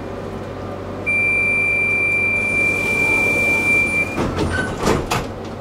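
Tram's door-closing warning tone: a steady high beep lasting about three seconds over the low hum of the tram interior, followed by a short run of knocks and clunks.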